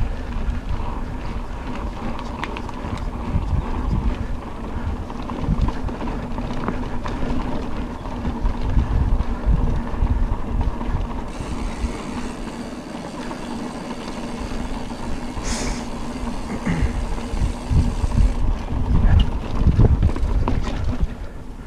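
Mountain bike riding over a rough dirt trail: the bike rattles and knocks over bumps, with wind rumbling on the microphone.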